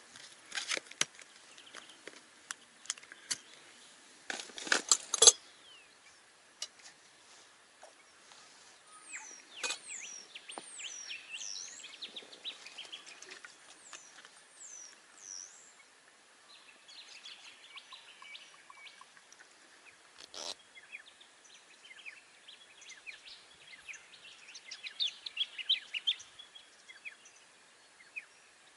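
Birds calling: a run of high, swooping whistles, then scattered quicker chirping. In the first five seconds, a few sharp clicks and knocks from handling a plastic water filter bottle.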